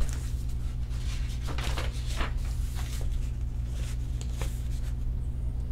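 Paper pages of a picture book being handled and turned: soft rustles and a few faint taps, over a steady low hum.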